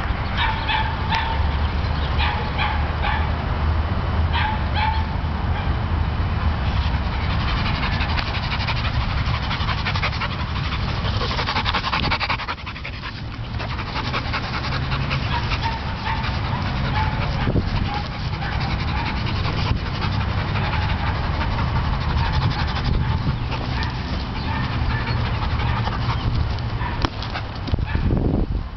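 A dog gives short high-pitched cries at intervals, over a steady low rumble.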